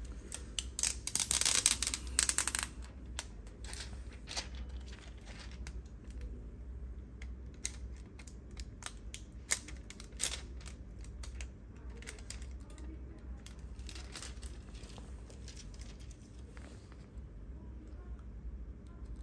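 Plastic protective film being peeled off a replacement phone screen: a burst of crackling, tearing sound about a second in, then scattered light clicks and rustles as the screen is handled.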